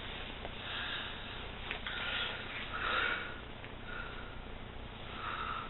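Faint, short breathy sniffs, about five of them roughly a second apart.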